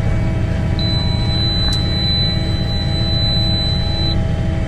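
Tractor engine droning steadily, heard from inside the cab while pulling a potato planter, with a thin high steady beep lasting about three seconds partway through.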